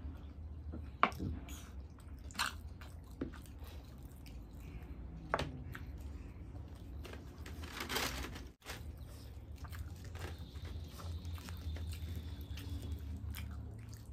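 Close-up eating sounds of chole bhature: chewing, biting and wet mouth smacks, with scattered short clicks. About eight seconds in comes a longer crackling rustle as a puffy bhatura is torn apart by hand.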